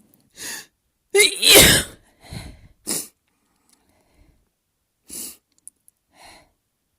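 A person sneezes once, loudly, about a second in, after a drawn-in breath; the sneeze starts with a voiced catch and ends in a burst of air. Four short breaths follow.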